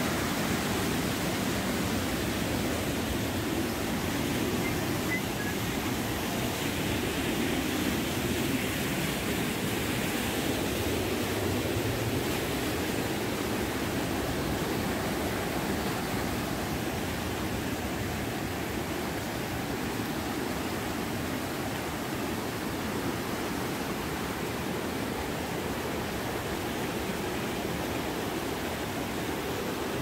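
Rain-swollen monsoon stream rushing over rocks: a steady, loud rush of water with no break.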